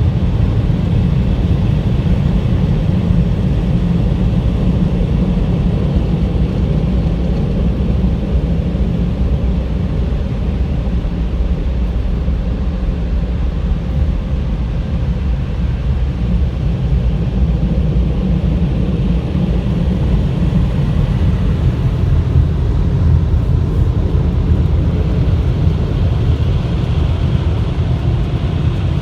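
Car wash running: a steady low rumble with a fainter hiss over it.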